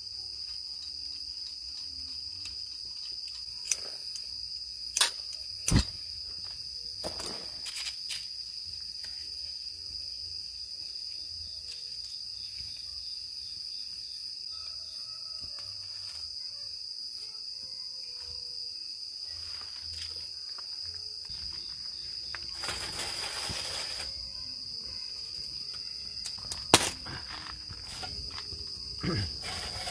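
Steady chorus of crickets chirping, with scattered sharp clicks and knocks from handling a small camp stove and kindling, and a brief rushing noise about three-quarters of the way through.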